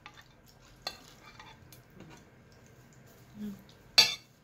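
Eating by hand from a plate of shell-on shrimp and rice: scattered light clicks and taps of fingers and food on the plate, with one sharp, louder clink near the end.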